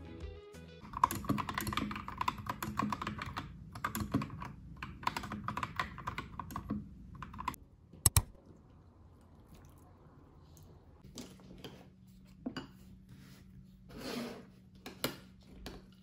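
Fast typing on a compact mechanical keyboard, dense key clicks in runs for about seven seconds, ending in one sharp click. Then a faint pouring hiss of milk going into a ceramic bowl of cereal, followed by a few light knocks and a short scrape.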